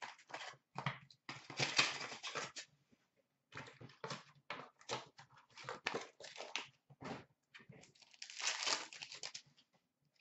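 Hockey card pack wrappers being torn open and crinkled by hand: a run of short, irregular crackling rustles, loudest about two seconds in and again near the end.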